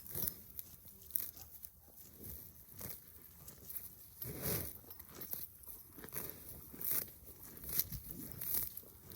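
Cows grazing on clover close by: irregular ripping and crunching as they tear off mouthfuls and chew.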